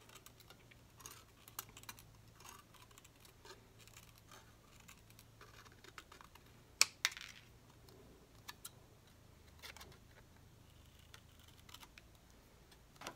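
Scissors cutting a sheet of Shrinky Dink plastic: a string of faint, irregular snips and clicks, with one sharper click about halfway through.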